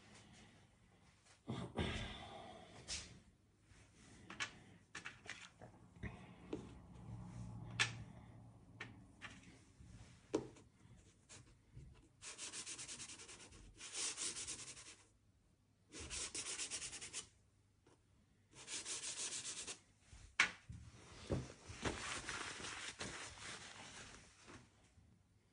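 Soft pastel stick scraping across textured colored paper in a run of gritty strokes, each about a second long, with a few light taps and knocks in between.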